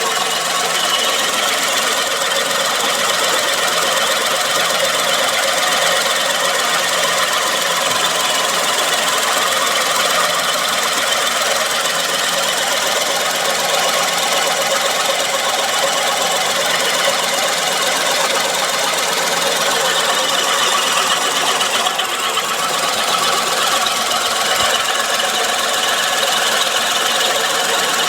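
Suzuki Wagon R's K6A three-cylinder engine idling with a steady abnormal whirring noise from the belt-driven accessories. The noise comes from a failing water pump bearing and a faulty A/C compressor, which later locked up and burned through the belt.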